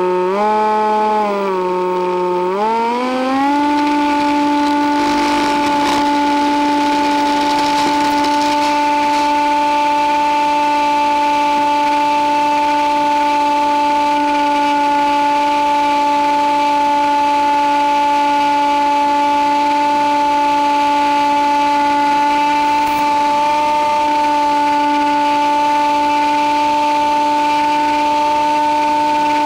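Electric motor and propeller of a stock Nitroplanes Easy Hawk RC plane, picked up by its onboard audio transmitter. The whine steps up in pitch over the first few seconds as the throttle is opened for takeoff, then holds a steady whine in flight.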